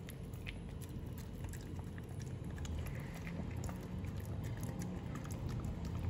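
A small dog eating soft food from a plastic tub, with scattered small clicks and smacks of licking and chewing.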